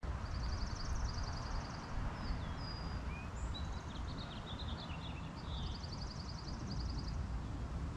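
Small birds chirping in the trees: two rapid high-pitched trills, one near the start and one about three-quarters through, with scattered short chirps and whistles between them, over a low steady rumble.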